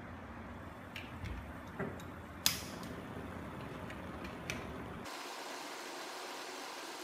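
Several sharp clicks, the loudest about two and a half seconds in, as a Bunsen burner is lit with a hand-held gas lighter. About five seconds in, a steady hiss takes over.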